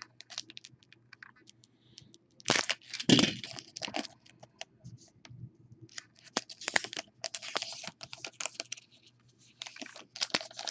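A trading-card pack wrapper being torn open and crinkled, with the cards inside slid out and handled: short crackling and rustling in several spells.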